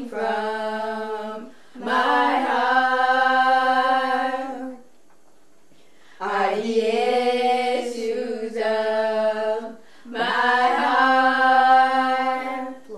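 Unaccompanied singing voice in four long, held phrases, with a longer breath just before the middle.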